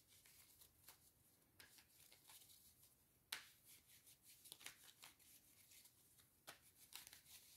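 Faint handling of tarot cards: a few soft slaps and rustles scattered through an otherwise near-silent room, the clearest about three seconds in.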